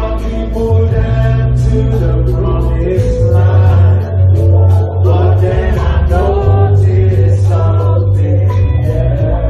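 Loud live concert music over a PA: a heavy bass line and a steady beat under singing voices.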